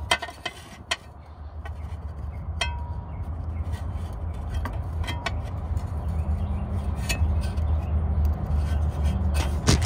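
A long flathead screwdriver clinking and tapping against a steel bracket and plastic connector: a few sharp clicks spread through, one ringing briefly about two and a half seconds in. A steady low rumble runs underneath.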